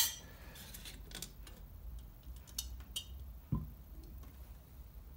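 A few light clicks and taps as a glass sealed-beam headlight unit is worked loose and lifted out of its metal headlamp bowl, with a small knock about three and a half seconds in as it comes free.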